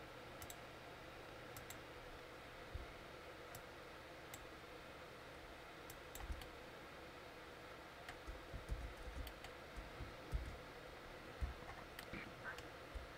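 Faint, scattered computer mouse and keyboard clicks over a low steady hiss, growing busier with a few soft bumps in the last few seconds.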